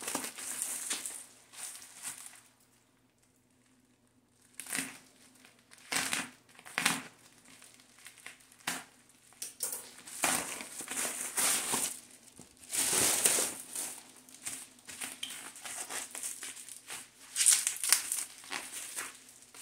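Parcel packaging crinkling and rustling as it is handled and opened, in irregular bursts with a brief lull about three seconds in.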